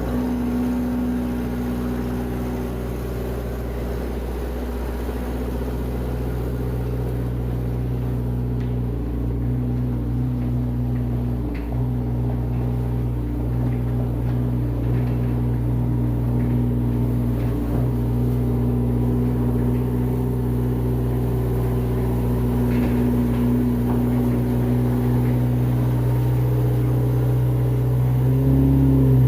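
Engine running steadily, with a brief dip about a third of the way through and a step up in loudness and pitch near the end.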